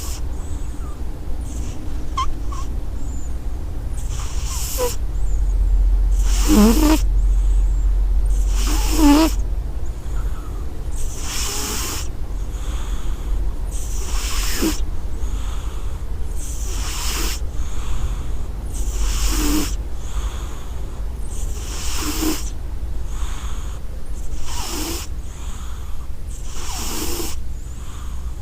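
A cat snoring in its sleep: a noisy breath about every two and a half seconds, some with a short squeak in it, over a steady low hum.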